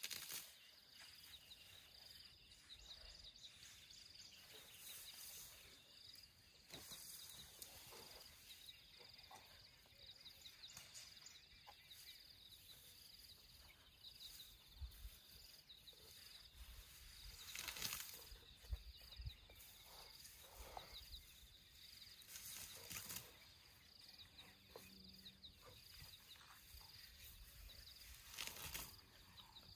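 African elephant calf pulling up and munching grass close by: intermittent rustling rips, the loudest about eighteen and twenty-three seconds in, over a faint steady high chirping of insects.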